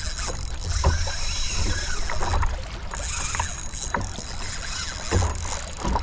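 Small waves slapping against a kayak hull several times, with wind rumbling on the microphone.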